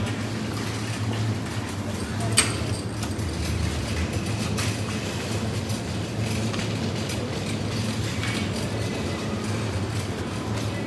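Steady low hum of supermarket room noise from the refrigerated display cases and ventilation, with one sharp click a little over two seconds in and a few fainter ticks later.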